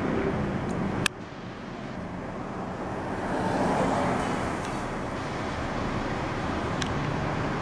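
Steady outdoor background noise with a low rumble, like passing traffic. A sharp click comes about a second in, after which the noise drops and slowly builds back up; a fainter click comes near the end.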